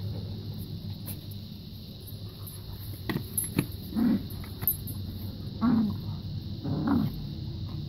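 Dogs playing, with three or four short, low play growls starting about four seconds in, a couple of sharp clicks just before them, and a steady low hum underneath.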